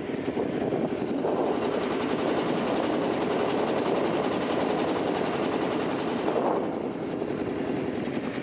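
A small engine running steadily with a fast, even beat; it gets a little softer about two thirds of the way through.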